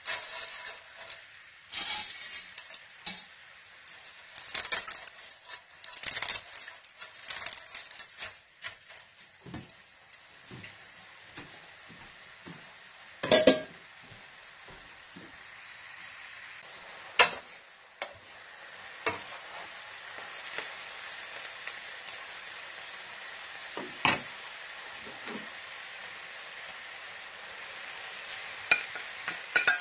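Dry pancit canton noodles rustling and crackling as they are handled and laid into an electric skillet of simmering sauce. After that a steady sizzle takes over, broken by a few sharp knocks against the pan and a clatter of a plate and spatula near the end.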